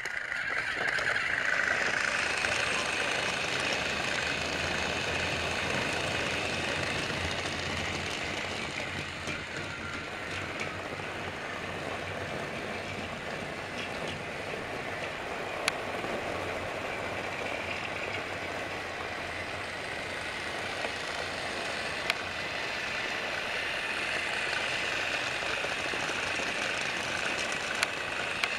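Battery-powered TrackMaster toy train motor whirring steadily as the engine runs along plastic track, louder at the start and again toward the end, with a few sharp clicks.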